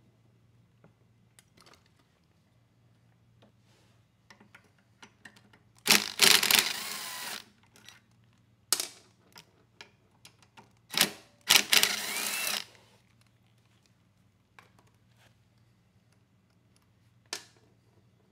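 Hand tools and metal parts being worked on a Briggs & Stratton Quantum mower engine while its carburetor is taken off: scattered light metal clicks and knocks, with two loud noisy bursts of a second or so, about six and about eleven seconds in.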